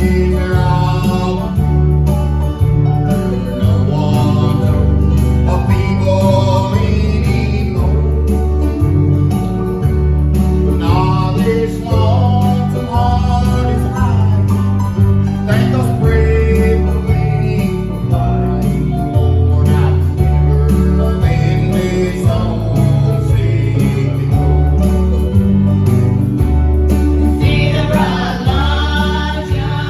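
Gospel song: voices singing over guitar and a bass line, with the singing growing fuller near the end.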